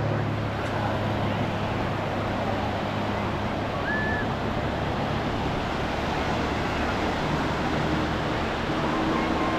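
Steady wash of ocean surf breaking on a beach, mixed with wind noise on the microphone. A brief high, whistle-like tone sounds about four seconds in.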